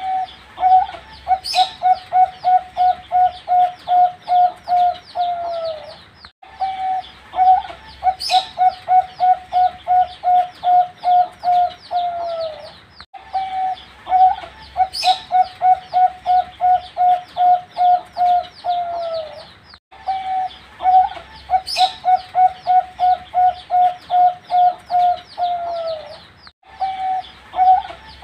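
Young zebra dove (perkutut) singing: a quick run of about a dozen even, low coos ending in a falling drawn-out note. The phrase repeats about every seven seconds, each opening with a sharp click, with faint high chirping behind.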